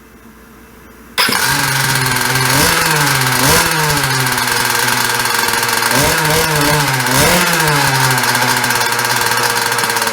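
Jetsurf GP100 board's 100 cc two-stroke engine catching abruptly about a second in and running, revved up twice in between. It is the first run after a carburetor rebuild with new diaphragms and gaskets, and it shows the rebuild worked.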